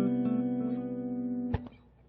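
Background music with plucked guitar notes, breaking off briefly near the end.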